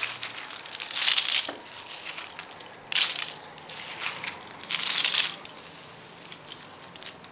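Cardboard jigsaw puzzle pieces clattering and rustling against the floor as hands break up the finished puzzle and sweep the pieces into a pile, in three louder rushes about one, three and five seconds in.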